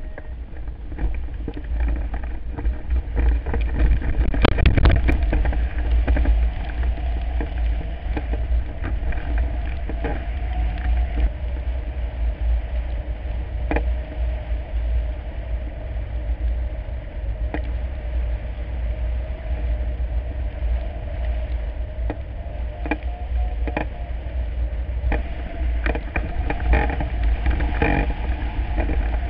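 Wind buffeting the microphone of a camera mounted on a flying hang glider: a heavy, steady low rumble of rushing air, with scattered sharp taps, a cluster about four seconds in and more near the end.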